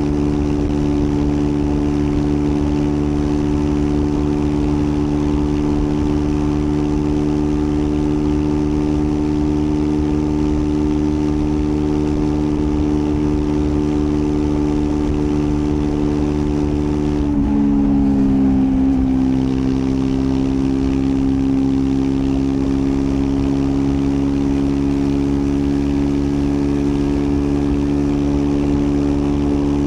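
Triumph Scrambler 400 X's single-cylinder engine running at steady revs under way. About two-thirds through, the revs dip and the note settles slightly lower.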